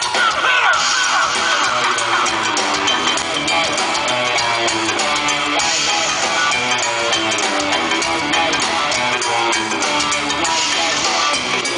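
Rock band playing live: electric guitars, bass guitar and drums, loud and steady, with a high wavering guitar line over the first two seconds or so.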